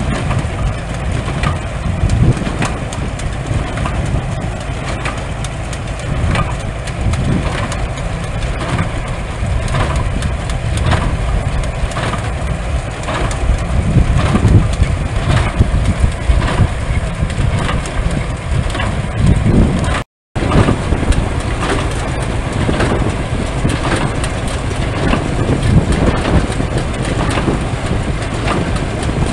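Massey-Harris stationary baler at work, its plunger packing straw with a regular knock a little under once a second over the steady running of the machine. After a short break near two-thirds of the way through, a threshing machine runs.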